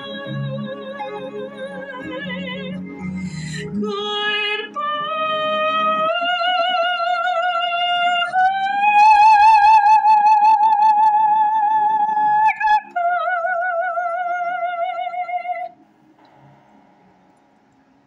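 Woman singing the last notes of a love song with strong vibrato: long held notes that step upward to a long high note, then a final lower held note that stops about three-quarters of the way through. Backing music sounds under the first few seconds.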